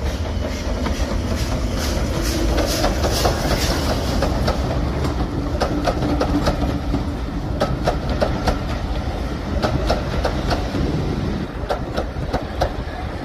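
Ivatt Class 2MT 2-6-0 steam locomotive passing with a train of coaches: a steady heavy rumble, with the locomotive's exhaust beats early on giving way to the coach wheels clicking irregularly over rail joints as the carriages roll by.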